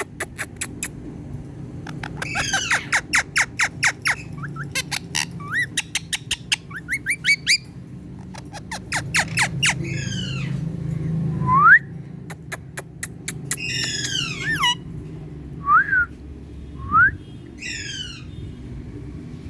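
Indian ringneck parrot calling: runs of rapid clicking chatter, short rising whistles and several loud falling squawks.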